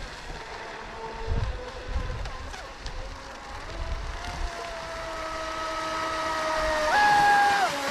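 Electric RC scale race boat's brushless motor (TP 4050 1700kv on 4S) whining as the boat runs, first at a lower part-throttle pitch. About seven seconds in it jumps to a higher, louder whine at full throttle, easing off again near the end. Wind thumps on the microphone now and then.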